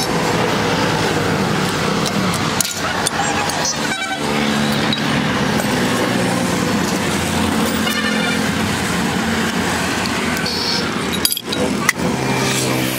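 Steady motor-vehicle and traffic noise with car horns sounding at times.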